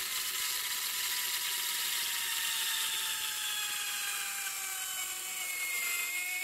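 Electric blender motor running steadily with a whine while oil is drizzled into egg mixture to make mayonnaise; the whine slowly drops in pitch as the emulsion thickens and loads the motor.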